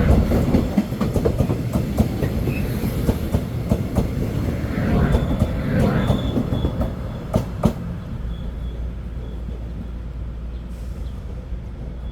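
Passenger train running along the station tracks, its wheels clattering over rail joints with a run of sharp knocks. It grows gradually fainter, leaving a steadier low hum.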